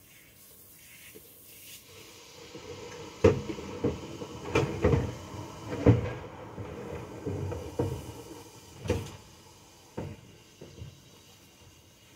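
Kitchen clatter: a string of irregular hard knocks and bumps as kitchenware is handled, set down and shut away. The knocks come thickest between about three and nine seconds in, then thin out to a few near the end.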